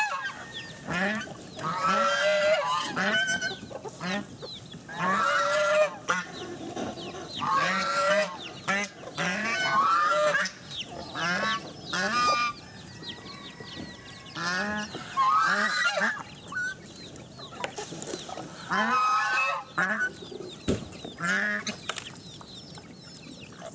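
Chinese geese honking again and again in bouts. Short low grunts from wild boar are heard between the calls.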